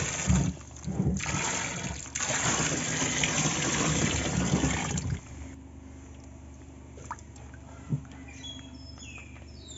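A thick stream of water pouring and splashing into shallow water in an old refrigerator box used as a fish breeding tank. It stops about five seconds in.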